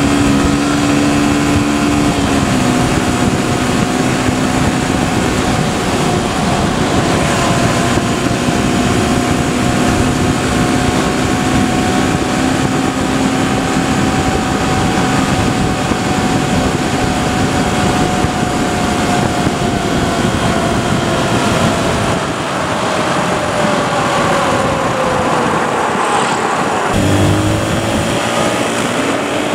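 Motorcycle engine running at riding speed, with heavy wind noise on a bike-mounted microphone. The engine pitch dips and picks up again near the end.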